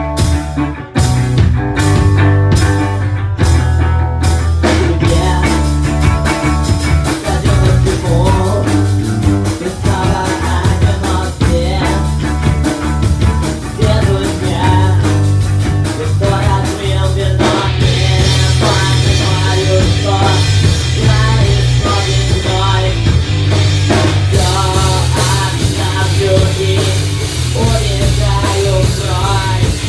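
Rock song playing: drum kit, bass and guitar, with a singing voice.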